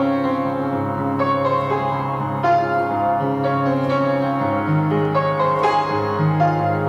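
Piano music: notes and chords struck about once a second over held low bass notes.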